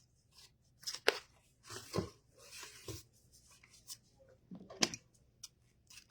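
Ribbon being handled and snipped with scissors: a few sharp clicks and a short rustle of ribbon.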